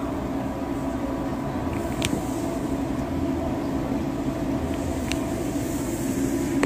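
A steady low hum with no break, and two faint clicks about two and five seconds in.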